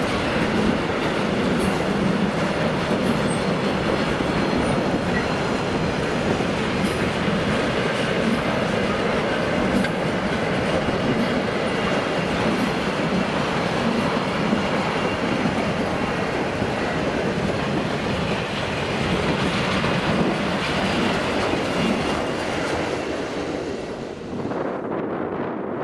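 A train running past on the track, a steady loud rumble of wheels on rail with some clickety-clack over the joints; the noise thins out and drops near the end as the last cars go by.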